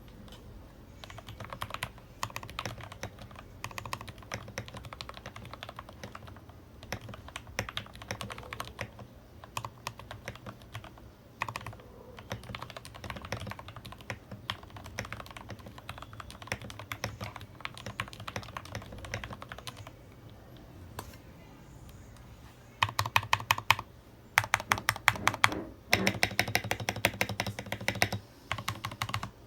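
Typing on a TOM680 mechanical keyboard fitted with lubed Gateron KS3 Black switches and KBDFANS keycaps: scattered irregular keystrokes that turn into fast, dense runs of typing for the last several seconds.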